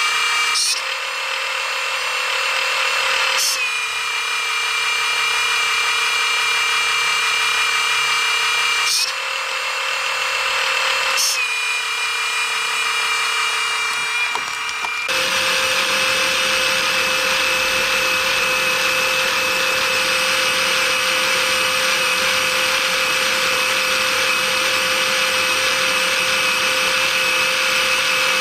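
Small electric motor of a scale-model wheel loader's hydraulic pump running with a steady high whine. A few times in the first half it briefly falls and recovers as servo-worked valves switch, and about halfway it changes to a steadier, fuller hum.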